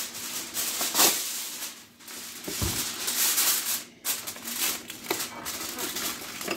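Aluminium foil crinkling and rustling as a sheet is laid into a metal baking sheet and smoothed down by hand, with a few light knocks against the pan.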